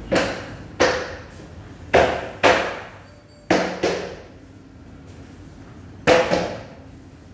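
Hammer knocking on the particleboard panels of an IKEA Billy bookcase being assembled: about eight sharp knocks, mostly in pairs, each with a short hollow ring.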